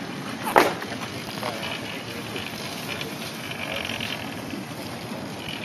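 Zero electric motorcycles moving off at low speed: a quiet mechanical whir and rattle with tyre noise, and one sharp knock about half a second in.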